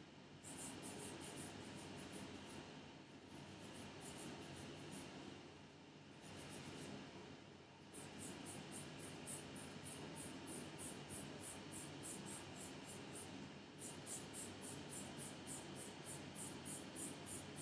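Faint, short scratchy swishes of a gel nail brush stroking gloss top coat across a nail tip, about three strokes a second, pausing briefly now and then.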